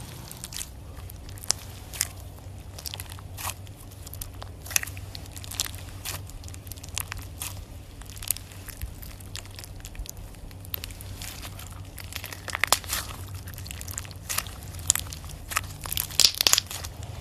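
Slime being squished and poked by hand, giving irregular crackling and popping clicks that crowd together twice in the second half, over a faint steady low hum.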